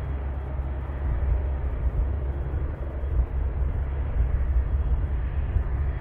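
Doctor-Heli medical helicopter hovering low, its rotor and turbine making a steady noise, under a heavy, uneven low rumble of strong wind on the microphone.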